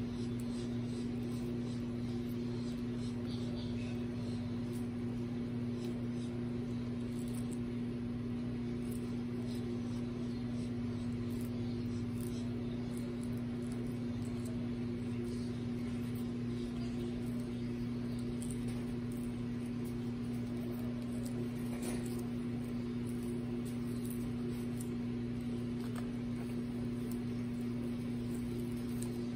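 A steady low mechanical hum at an even level, with faint scattered crisp clicks of baby Aldabra tortoises biting and crunching lettuce leaves.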